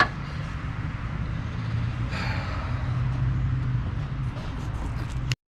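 Steady low mechanical hum under a faint noisy haze, with a few light knocks about two seconds in. It cuts off abruptly near the end.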